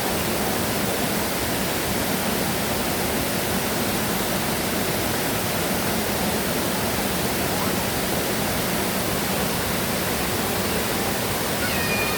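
Steady rushing of a stream's flowing water, an even noise spread across low and high pitches without a break.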